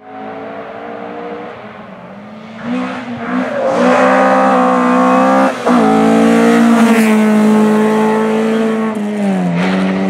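Ford Escort rally car engine at high revs, approaching and getting much louder, with a short break in the note about halfway through, then held high and dropping in pitch as it passes close near the end.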